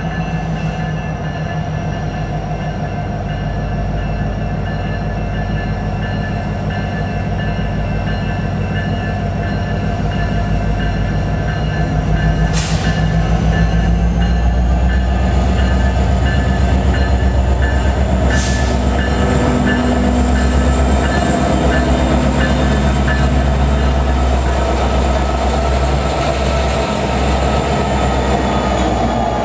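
Two CN EMD SD70M-2 diesel-electric freight locomotives rumble as they approach at low speed and pass close by, growing louder over the first half. Two sharp metallic clanks come about halfway through and again a few seconds later.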